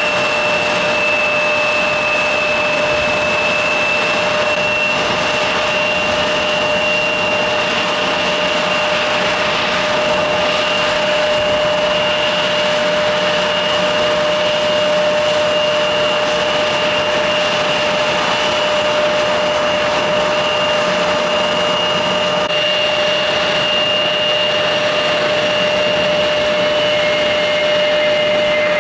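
A jet airliner's engines running steadily, a loud even rush with a steady high whine on top.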